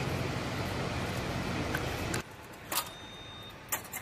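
Steady airfield background noise with a low hum stops abruptly about halfway through. Two sharp clicks follow, about a second apart.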